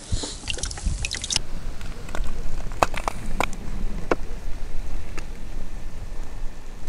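Wind rumbling on the microphone on open ice, with a few short sharp clicks scattered through the middle.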